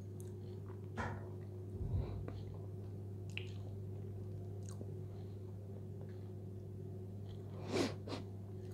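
A person chewing food with the mouth closed: a few short, wet mouth clicks and smacks, the loudest pair near the end, over a steady low hum.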